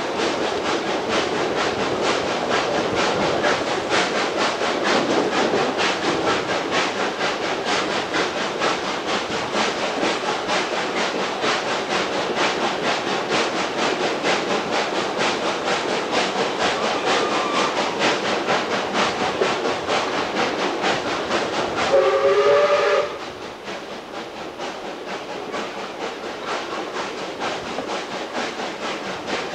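Steam-hauled passenger train running with a fast, even beat, heard from an open carriage window behind ex-South Australian Railways locomotive 520. About three-quarters of the way in, the locomotive's steam whistle gives one short blast of several notes at once, and the train's sound is quieter after it.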